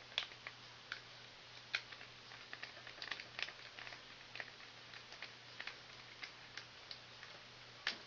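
Scattered small clicks and taps, irregular and sharp, from handling wires and tools in an HVAC control panel, over a faint steady low hum.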